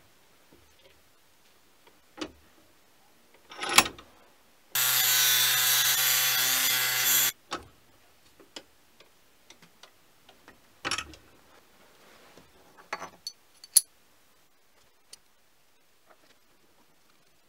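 A small electric motor runs at a steady pitch for about two and a half seconds, starting and stopping abruptly. Around it are scattered light clicks and taps of small metal parts being handled and fitted together.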